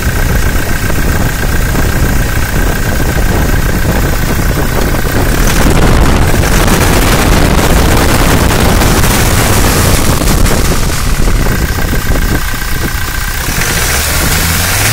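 Starter cranking the Toyota Innova Crysta's diesel engine for a long spell while air is bled from its loosened injector lines: air in the fuel system is the cause of its crank-but-no-start.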